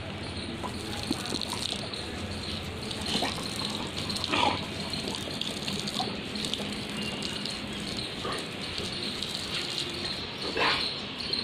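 Garden hose spraying water onto wet paving and a boxer dog: a steady rushing hiss, with a few louder splashes.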